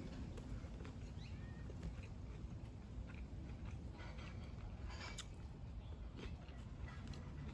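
Eating sounds: a metal fork clicking and scraping in a plastic meal-prep container, with quiet chewing, over a steady low rumble. A faint, short high squeak about a second and a half in.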